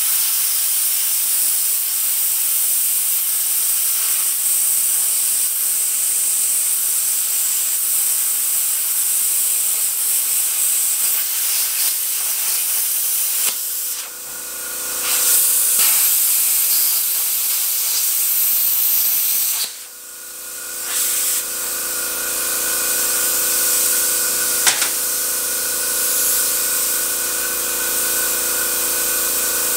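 Plasma cutter arc hissing steadily as the Arccaptain CUT50 torch cuts through quarter-inch steel bar, with a short break about 14 seconds in and a sudden stop at about 20 seconds. After it stops, a steady machine hum with several pitches runs on.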